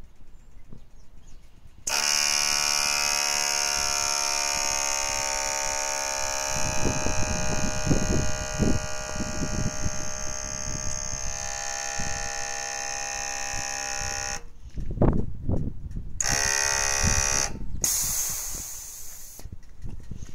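Shotgunshock air-ride suspension compressor switching on about two seconds in and running with a steady electric buzz for about twelve seconds. After a short stop it runs again briefly, followed by a short hiss of air. Low thuds and rumbles come through now and then.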